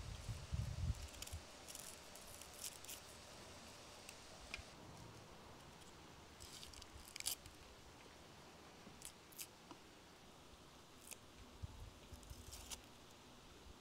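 Faint, scattered crisp snaps and ticks of vegetables being cleaned by hand: a small knife cutting and peeling dry onion skin, and fresh herb stems being pinched and picked. A soft low rumble comes in the first second.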